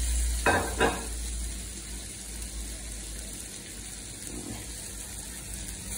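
Ginger and onion-tomato masala frying in oil in a karahi wok over a gas burner: a steady sizzle.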